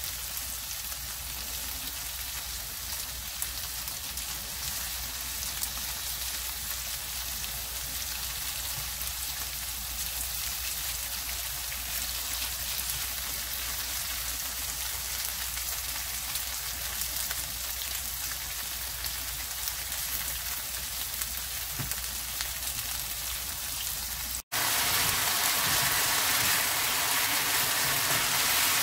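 Cubes of firm tofu pan-frying in oil, a steady sizzle. About 24 seconds in it cuts out for an instant and comes back louder.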